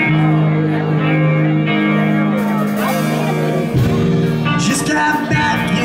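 Live band playing amplified music, led by electric guitars holding sustained chords. A bright, high, shimmering layer comes in about halfway through, and the bass end fills out shortly after.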